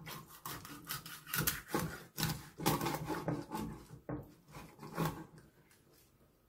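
Kitchen knife cutting through a thawed Alaska pollock's head on a wooden cutting board: a run of irregular cutting strokes, with the blade knocking on the wood, dying away near the end.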